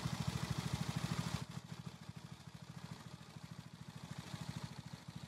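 Small petrol engine of lawn equipment running with a fast, even pulse, a little louder for the first second and a half.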